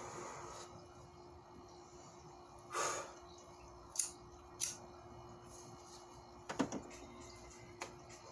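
Quiet room with a steady low hum, as a man smokes a cigarette: a short breathy puff about three seconds in, then a few sharp little clicks and taps from handling things with gloved hands.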